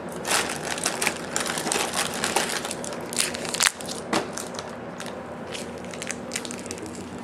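Plastic candy wrappers crinkling and rustling in a hand, with irregular sharp crackles throughout.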